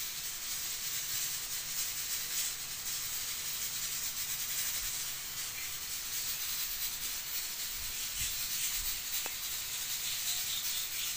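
A steady, even hiss that holds unchanged throughout.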